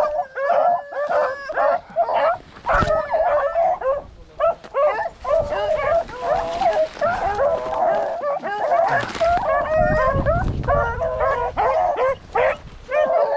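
Rabbit-hunting dogs barking and yipping in quick, overlapping calls. Pine brush scrapes past the microphone midway through.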